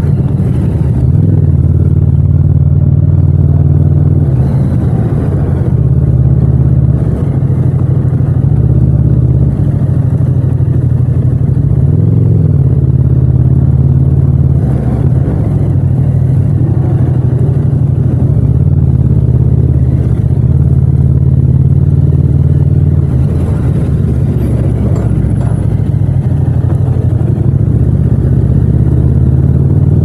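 Yamaha MT-07's 689 cc parallel-twin engine running at low speed, with small rises and falls in pitch as the throttle opens and closes.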